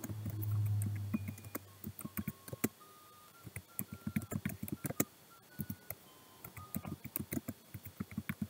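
Typing on a computer keyboard: a fast, irregular run of key clicks that thickens after the first two seconds. A low hum sounds in the first second or so, and a few faint short beeps come in the middle.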